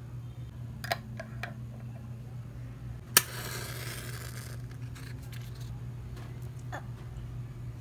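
A few light clicks, then a wooden match struck on its matchbox: a sharp scrape followed by about a second and a half of hissing as the match head flares.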